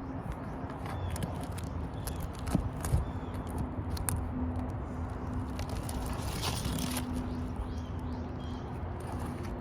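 Scattered clicks and one louder scrape about six and a half seconds in, from hand work on an asphalt-shingle roof, over a low hum that breaks off and resumes. A few faint bird chirps.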